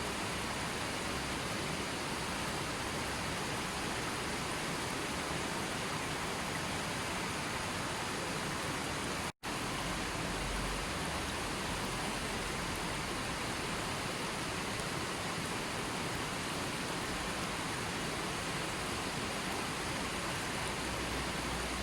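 Steady rushing noise of water, even and unbroken, apart from a brief cut to silence about nine seconds in.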